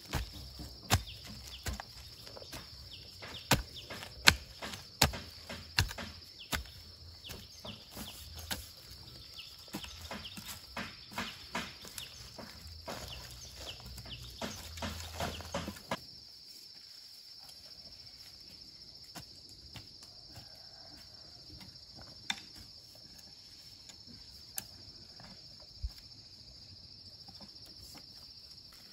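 Steel hoe chopping and scraping into loose dry soil: repeated sharp strikes, about one or two a second, for roughly the first half, after which they stop and only a few faint ticks remain.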